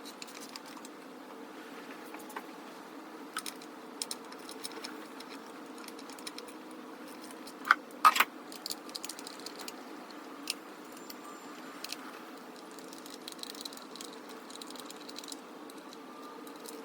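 Hand tools and metal parts clinking and rattling while work goes on in a car's engine bay: scattered light clicks, with two louder clanks about eight seconds in, over a steady low hum.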